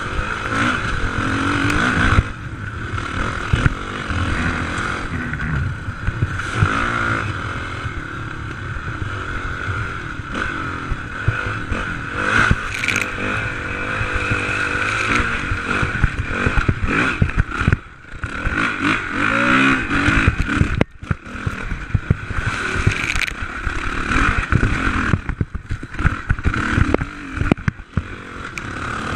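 Suzuki RMX450Z enduro motorcycle's single-cylinder four-stroke engine being ridden off-road, revving up and down under changing throttle, with scraping and clattering from the bike over rough ground.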